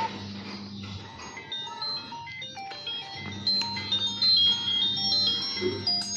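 Nokia Asha 200 mobile phone playing a ringtone: a chiming melody of short, bright notes that comes in softly about a second and a half in and grows louder partway through.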